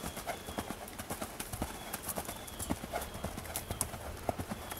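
Hoofbeats of a horse cantering on grass, a run of soft, uneven thuds.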